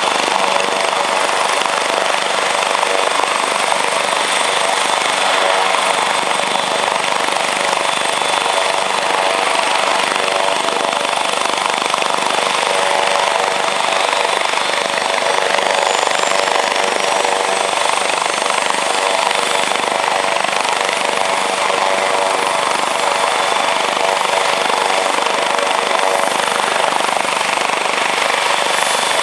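AgustaWestland AW139 twin-turboshaft helicopter running on the ground with its rotors turning: a loud, steady rotor noise with a high, even turbine whine over it.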